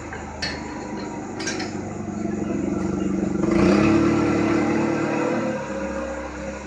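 A vehicle engine going by, growing louder to its loudest a little past halfway and then fading, with two sharp clicks about half a second and a second and a half in.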